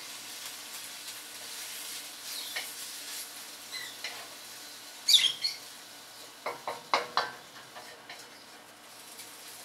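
Chicken, peppers and onions sizzling in a hot oiled pan while being stirred, with a utensil scraping loudly across the pan about five seconds in and a run of sharp knocks against it a couple of seconds later.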